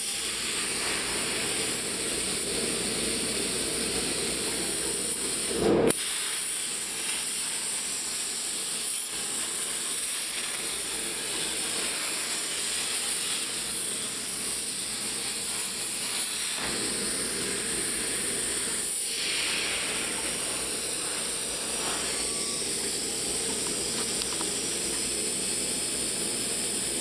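CNC plasma cutter torch cutting steel, a steady hiss from the plasma arc and its compressed air, with one brief louder pop about six seconds in.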